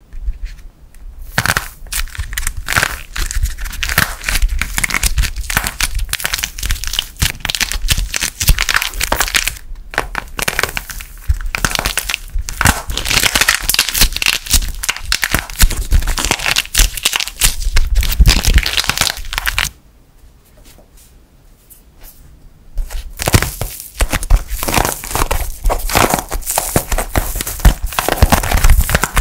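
Dried plaster-clay coating cracking and crunching as hands squeeze and break it over soft clay, a dense run of small crackles. The crackling stops for about three seconds in the second half, then starts again.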